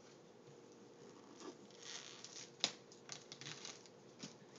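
Faint rustling and crinkling of wrapping paper being picked at and torn off a gift box, with a few short crisp ticks, the sharpest about two and a half seconds in.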